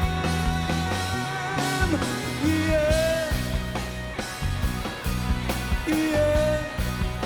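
Live band playing the instrumental ending of a pop-rock song, with held, wavering lead-melody notes over steady bass and drums.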